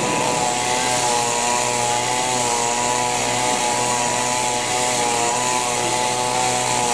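Two-stroke chainsaw engine running steadily at an even speed, its pitch holding constant.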